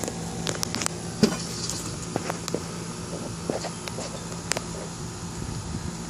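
Light scattered clicks and rustles over a steady low hum: handling noise as the camera is moved around a car's engine bay, with the engine not running.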